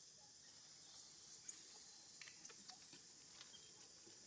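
Near silence: faint scattered clicks and rustles over a steady high-pitched hiss.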